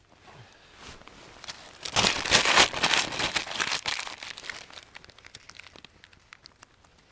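Newspaper crumpling and dry twigs crackling as a campfire is laid. The sound is loudest for about two and a half seconds from about two seconds in, full of small sharp ticks.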